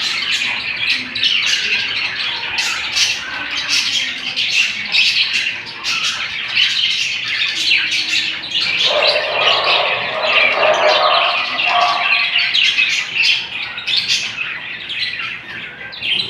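A group of budgerigars chirping and chattering constantly, many short high calls overlapping. A lower-pitched sound joins for about three seconds in the middle.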